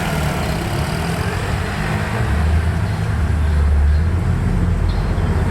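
Low, steady rumble of a large vehicle, swelling about two seconds in and easing slightly near the end.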